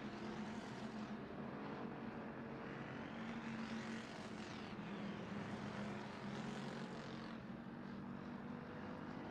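IMCA Hobby Stock race cars running at speed on a dirt oval, a steady engine drone, with cars sweeping past about four seconds and seven seconds in.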